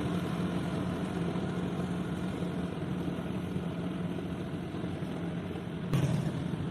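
Rice harvester engine running steadily with a constant drone. A single sharp knock about six seconds in.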